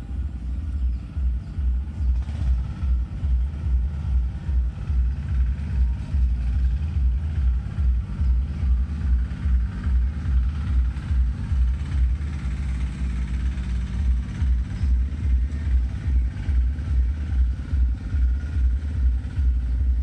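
Electronic music with a heavy bass beat pulsing quickly and evenly throughout.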